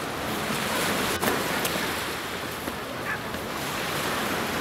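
Steady rushing of waves and wind on the shore, with one sharp click about a second in.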